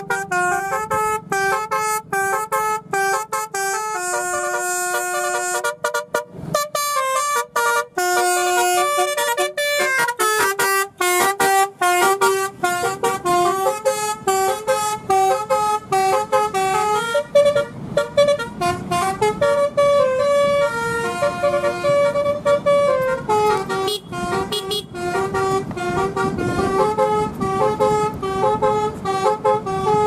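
Multi-tone telolet horn on a Toyota Kijang Innova, driven by a telolet module, playing a fast tune of short stepped horn notes with a few longer held ones.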